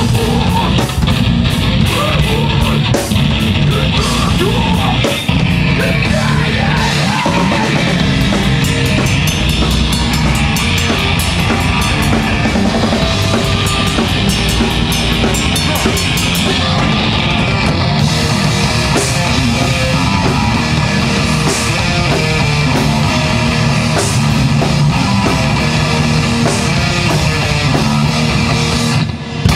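Live heavy metal band playing loud: distorted electric guitar, bass guitar and drum kit, with a vocalist on the microphone. A brief dip in the music comes near the end.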